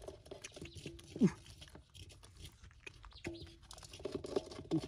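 Hands squelching and slapping in wet mud, with a steady run of small wet crackles and clicks as stranded fish are felt for and picked out. Over this come a few short cries, one falling sharply in pitch about a second in.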